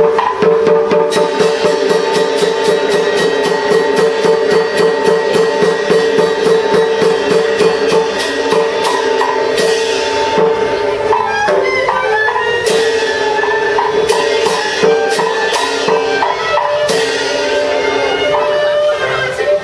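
Teochew opera music: a percussion ensemble with fast, even wood-block clicks through the first half and a few crashes later, under a sustained melodic instrument line.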